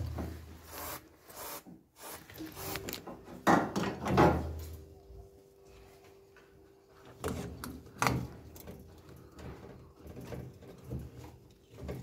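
Scattered knocks, rubs and clatter of hands and a spray can moving inside a washing machine's cabinet, around the tub and its frame, with a louder cluster about four seconds in.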